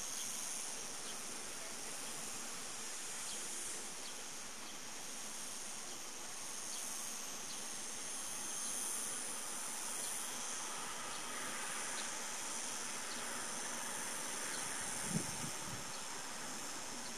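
Chorus of cicadas singing: a steady high-pitched buzz that swells and fades slightly. A brief low thump about fifteen seconds in.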